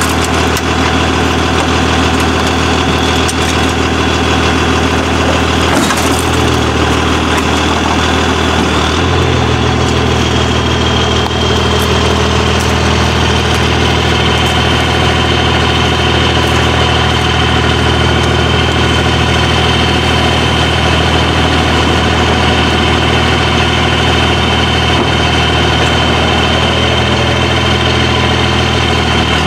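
City bus's rear-mounted diesel engine idling steadily, its note shifting slightly about six and nine seconds in, with a thin high whine over it from about ten seconds in.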